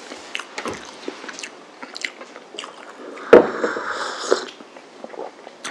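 Close mouth sounds of a person chewing a madeleine, small wet clicks and smacks, then about three and a half seconds in a sip of coffee from a mug, slurped in for about a second, the loudest sound here.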